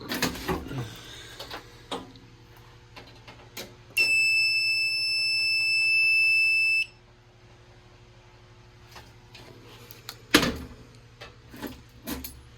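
Fire alarm control panel's piezo buzzer sounding one steady, high-pitched beep of about three seconds as the system is reset. A few clicks come before it, and a sharp knock follows near the end.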